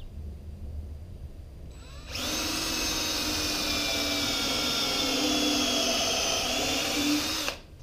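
Cordless DeWalt drill boring a pilot hole into rough-cut cedar for a lag screw: it starts about two seconds in, runs at a steady speed with an even motor whine for about five seconds, then stops abruptly.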